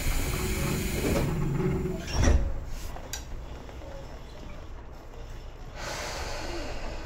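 Tobu 10030 series train equipment heard from inside the car: a rushing air hiss, then a heavy thud a little over two seconds in followed by two light clicks, and another hiss starting near the end.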